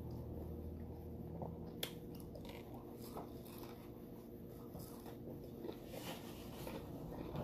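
A person chewing a mouthful of cheeseburger close to the microphone, with soft wet smacks and small clicks and one sharper click about two seconds in, over a faint steady hum.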